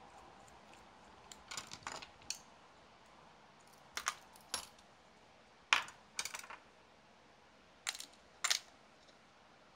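Small metal hand tools and plastic and metal RC car parts clicking and clinking as they are handled, set down and dropped into a plastic parts box. The sharp clicks come in four short clusters, the loudest about halfway through.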